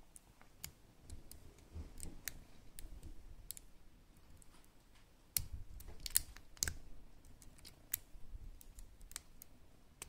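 Faint irregular clicks and light scraping of a lock pick and tension wrench working inside the pin-tumbler cylinder of an ABUS padlock, a little louder from about halfway through.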